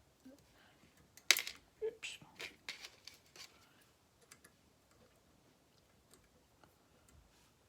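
Small metal clicks and taps from handling a jeweler's miter vise and silver tubing: one sharp click about a second in, a quick run of smaller clicks over the next two seconds, then only faint ticks.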